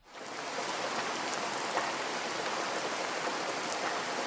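Steady heavy rain, a continuous even hiss that fades in over the first half second.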